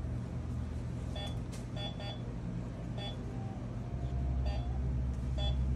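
Short electronic beeps from a patient monitor attached to an anaesthetised cat, about six of them at irregular spacing, with one longer tone near the middle, over a steady low hum.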